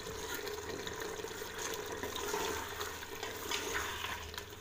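Wooden spoon stirring and scraping mutton in an aluminium pot over a steady hiss of cooking; the meat's water has cooked off and it is nearly tender.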